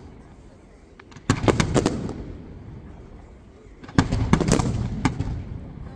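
Aerial firework shells bursting in two volleys, about a second in and about four seconds in. Each volley is a quick run of sharp bangs with a low rumble dying away after it.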